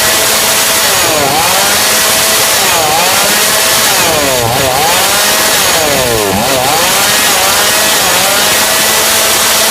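TOPSUN 5600 two-stroke chainsaw running loud at high speed, its engine pitch dipping sharply and recovering about four times.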